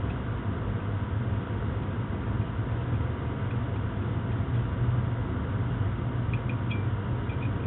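A steady low mechanical hum over a constant hiss, with a few faint high chirps near the end.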